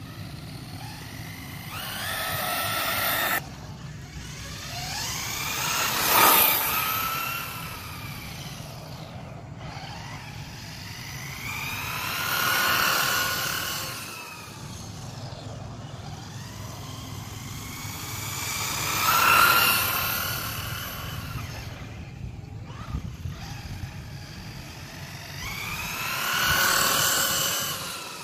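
ZD Racing 1/10 electric RC car with a RacerStar brushless motor making repeated high-speed passes, about five times. Its high motor and drivetrain whine swells and climbs in pitch as it approaches, then drops and fades as it goes by. The first pass cuts off suddenly.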